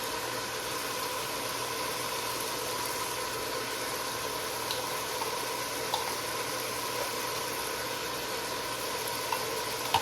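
Meat, onion and tomato paste frying in a chili pot: a steady sizzle with a faint hum beneath it and a few light clicks. The mixture is starting to brown on the bottom.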